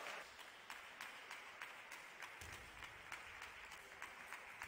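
Faint, scattered applause from a small crowd of spectators, tapering off.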